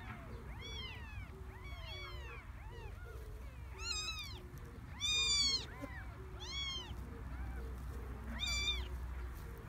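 Young kittens mewing repeatedly, several high, thin cries that rise and fall in pitch, sometimes overlapping. The loudest cry comes a little past the middle.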